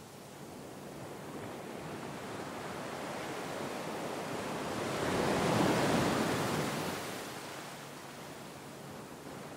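A rushing noise, like surf or wind, swells slowly, peaks about six seconds in, then falls back to a low steady hiss.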